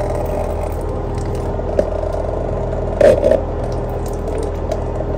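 Handling at a toilet's water supply line connection and a plastic cup held under it: a few small clicks and a louder scrape about three seconds in, over a steady low hum.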